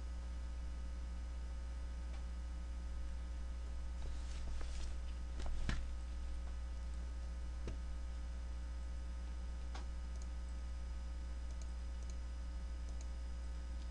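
Steady electrical mains hum on the recording, with a few scattered mouse clicks in the middle.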